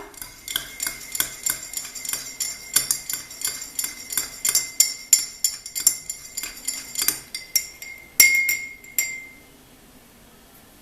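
A metal teaspoon clinking against the inside of a cup of warm milk, about two to three strikes a second, each with a short ringing tone, as butter is stirred in. Two louder taps come near the end, then it stops.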